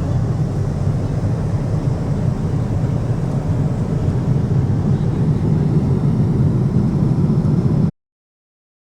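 Steady low rumble of an airliner cabin in flight, the jet engine and air noise heard from inside, cutting off abruptly near the end.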